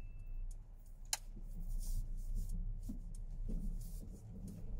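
Low steady rumble of engine and road noise inside a car's cabin, with a few faint scattered clicks, the clearest about a second in. The ringing tail of a chime fades out in the first half second.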